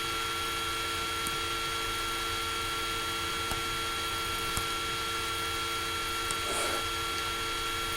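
Laptop cooling fan running steadily, picked up loud by the laptop's own built-in microphone: an even hiss with several constant whining tones. A few faint clicks sit on top.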